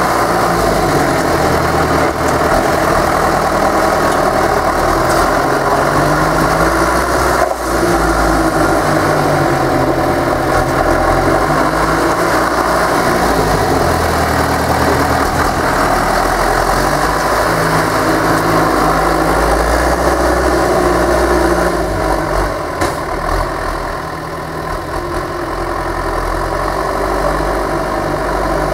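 John Deere 2850 tractor's four-cylinder diesel engine running under load, its note rising and falling again and again as the tractor drives back and forth over the grass, packing the silage pit. It gets quieter near the end as the tractor climbs onto the heap.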